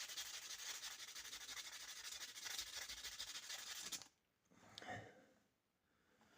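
240-grit sandpaper rubbed briskly by hand over a pocket knife's metal blade, a steady scratchy rasp that stops abruptly about four seconds in; a faint short sound follows about a second later.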